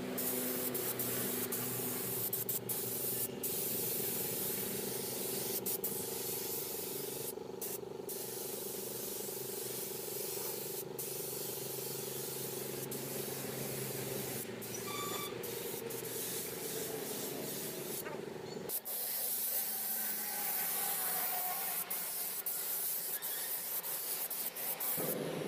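Compressed-air spray gun with a top-mounted paint cup hissing steadily as it sprays paint, breaking off briefly a few times. A steady low machine hum runs beneath, thinning out about three-quarters of the way through.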